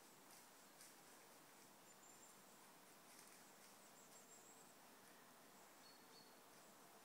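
Near silence: faint woodland background with a few faint, short, high chirps.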